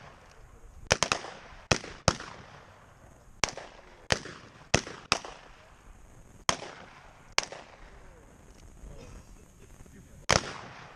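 Revolver gunfire: about a dozen single shots at uneven spacing, a couple fired almost together about a second in. Each shot rings out briefly. There is a lull before one last shot near the end.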